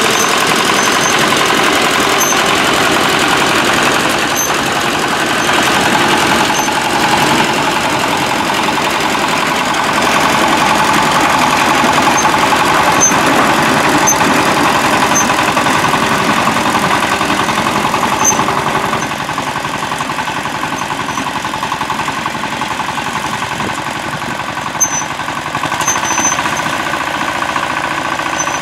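Buivol 18 hp mini tractor's engine running steadily under load while its rear rotary tiller churns the soil, with one brief sharp knock about three-quarters of the way through.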